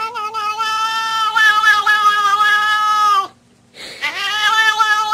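A cat yowling: one long, drawn-out call that breaks off a little past three seconds in, then after a short pause a second long call begins.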